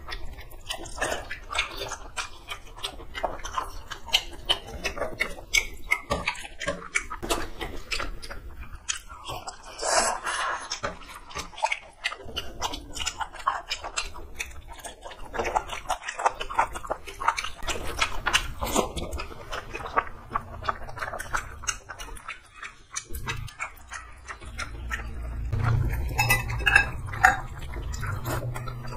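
People eating rice and curry by hand from stainless-steel plates: a steady patter of small clicks and clinks of fingers and a spoon against the steel, with chewing.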